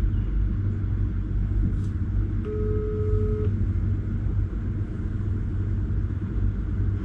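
Steady low rumble, with a single electronic tone about two and a half seconds in that lasts about a second: a phone's ringing tone while a call is placed, heard through the phone's speaker.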